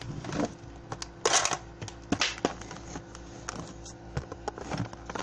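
Plastic makeup case being opened and its contents handled: a scattered series of sharp plastic clicks and knocks, with a brief scraping rustle about a second in.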